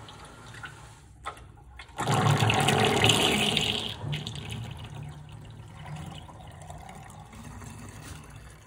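Water running from a garden hose and splashing into a basin of rusty rinse water. It comes in as a loud gush about two seconds in, then eases after a couple of seconds into a steadier flow.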